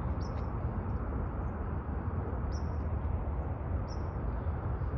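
Small birds giving three short, high chirps, spaced out, over a steady low rush of wind on the microphone.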